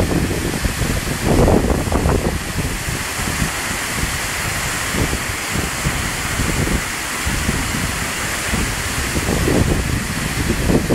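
Waterfall's rushing water as a steady, loud hiss, with wind buffeting the microphone in irregular gusts.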